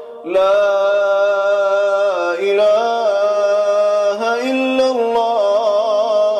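A male Quran reciter chanting in the melodic Iraqi style, drawing out one long sung vowel with slow pitch turns. A quick wavering ornament comes near the end.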